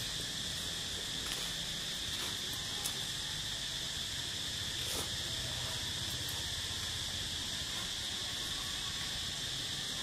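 Steady, high-pitched insect chorus buzzing without a break, with a couple of faint ticks.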